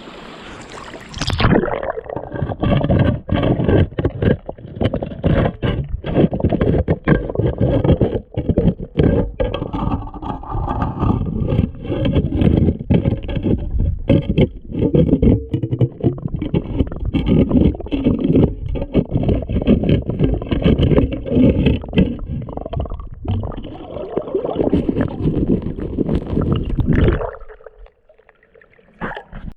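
Loud, muffled scraping, rubbing and knocking right against the microphone, with some water gurgling, while digging in shallow water. It stops abruptly near the end.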